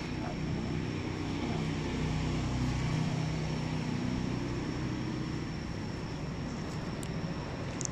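An engine running with a steady low drone, a little louder in the middle.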